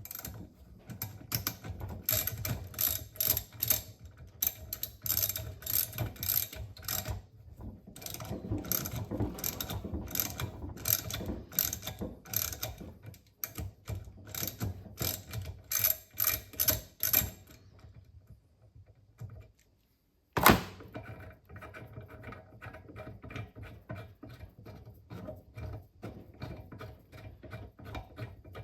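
Socket ratchet clicking in runs as a thread chaser is worked back and forth through a threaded brass spark plug insert, cleaning up a damaged spot in the thread. The clicks come about three a second. They stop for a moment, then one loud sharp knock follows, and then lighter clicking.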